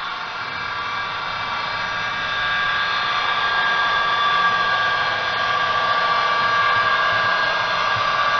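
HO scale SD70MAC model diesel locomotive running toward the listener, a steady whirring hum with several steady tones that gets louder about two and a half seconds in as it comes closer.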